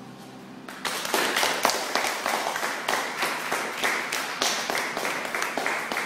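A held musical chord fades away, then about a second in a round of applause starts and continues: many hands clapping densely.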